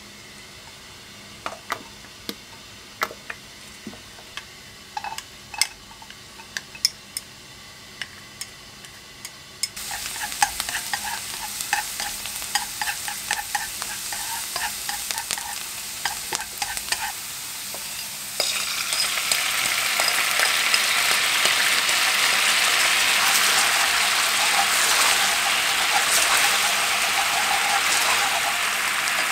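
A nonstick wok on the heat, quiet apart from a few light taps; about ten seconds in, sliced garlic starts sizzling in oil, stirred with wooden chopsticks that click against the pan. About halfway through, the soy-based seasoning sauce goes in and the pan sizzles and bubbles louder and steadily.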